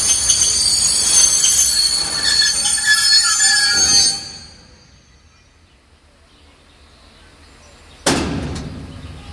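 Freight wagons rolling on the rails with their wheels squealing in several high, steady tones; the noise cuts off sharply about four seconds in. After a quiet stretch, a single sudden loud bang near the end fades over about a second.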